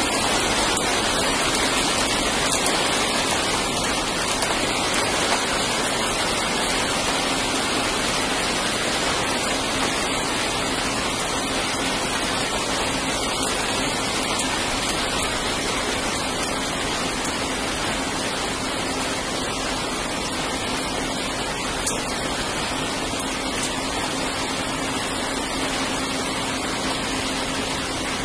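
Steady rain falling, a constant even hiss that eases slightly over time.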